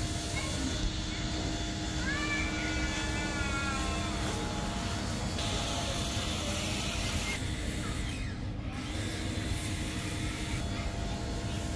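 A cat meowing: one drawn-out call, bending up then down, about two seconds in, over a steady low background rumble.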